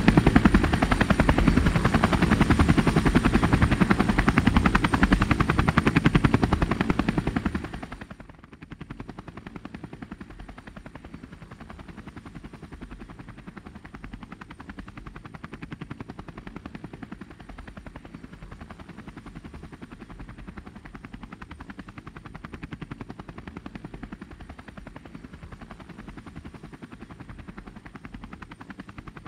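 Light helicopter's rotor chopping loudly while it comes down over the river, then dropping abruptly to a much quieter, steady beat about eight seconds in as it sits down on a floating pontoon and the rotor keeps turning at reduced power.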